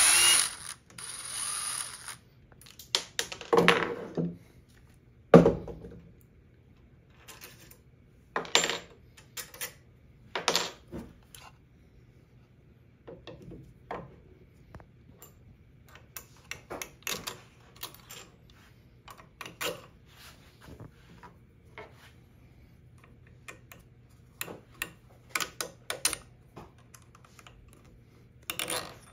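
Bolts and small metal machine parts clicking and clinking as they are handled and fitted by hand on a CNC router's gantry: scattered light clicks, with a few louder knocks in the first six seconds, the loudest a sharp knock about five seconds in.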